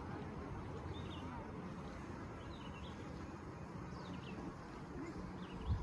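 Small birds chirping briefly now and then over a steady low background rumble.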